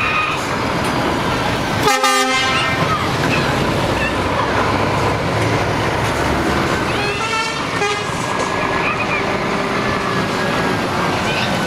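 Scania heavy trucks driving past slowly with their diesel engines running. Horns are sounded twice: a short blast about two seconds in and another about seven seconds in.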